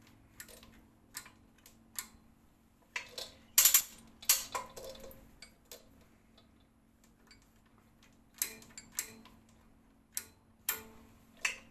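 Chain block being ratcheted up a few clicks to load a pull-test rig: irregular sharp metallic clicks and clinks of the ratchet and chain, in two clusters with a quieter gap in the middle.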